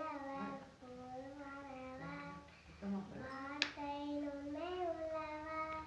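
Slow chant sung in long held, gently sliding notes, with a child's voice at the fore. A single sharp tap sounds about three and a half seconds in.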